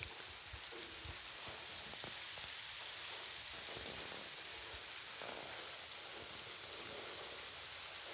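Steady hiss of rain beginning to fall on the scrub and ground: the first of an approaching thunderstorm.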